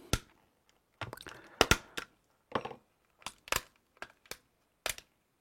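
Plastic sat-nav case being pried apart with a spudger: a run of sharp cracks and clicks as the clips holding the case halves snap loose.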